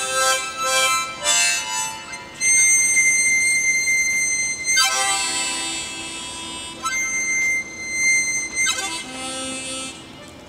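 Harmonica played without a melody: clusters of reeds sounding together as shifting chords, twice giving way to a long held high note of two to three seconds, with breathy chords in between.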